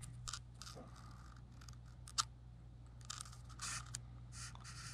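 Faint scratching and rubbing noises with a few small clicks and one sharper click about two seconds in, over a steady low hum.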